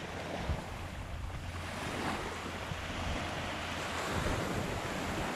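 Small waves washing up onto a sandy beach, the surf swelling about two seconds in and again near four seconds, with wind rumbling on the microphone.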